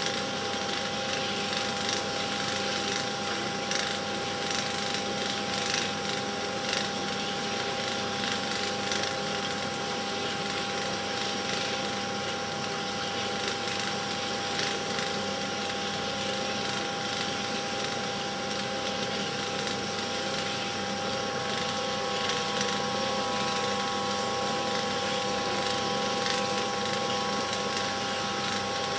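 A film projector running: a steady mechanical whirr with a constant hum and faint ticking from the film mechanism, with no soundtrack on the old silent film.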